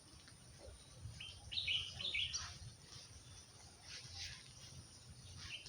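Birds chirping: a cluster of short high calls about one to two and a half seconds in, and another near four seconds, over a faint low rumble.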